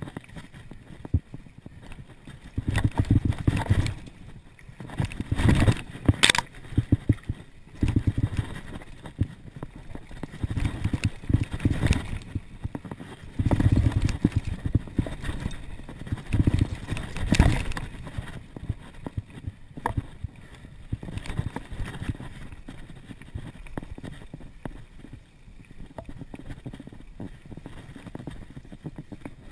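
Mountain bike rattling and clattering down a rough dirt trail: tyres rumbling over dirt and roots, with the chain and frame knocking in rapid clicks. It comes in rough stretches, heaviest in the first two-thirds and calmer near the end.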